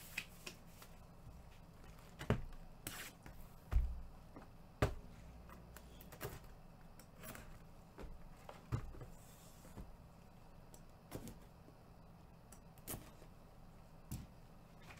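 Quiet room tone broken by scattered light clicks and knocks, one every second or so, with a dull thump about four seconds in.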